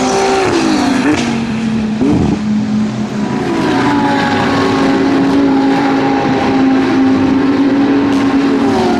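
GT3 race car engines at racing speed: the engine notes slide down and then sweep up over the first couple of seconds, then one steady, loud engine note holds for the rest.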